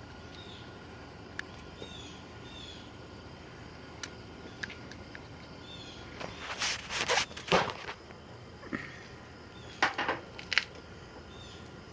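Hands fitting a plastic turn signal switch assembly onto a steering column: a few sharp clicks and two spells of scraping and rustling handling noise. Faint bird chirps in the background.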